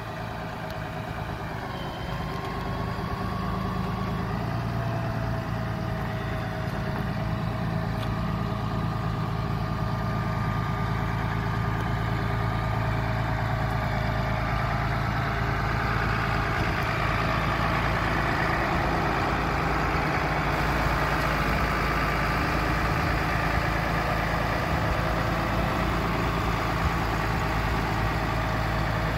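2016 Ram 5500 bucket truck's engine idling steadily, with a steady whine over the low engine note; it grows louder over the first several seconds, then holds level.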